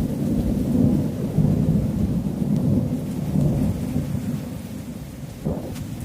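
Thunder rumbling low and rolling during a heavy monsoon rainstorm, with rain hissing underneath. The rumble swells in at the start and has a fresh sharper crack about five and a half seconds in.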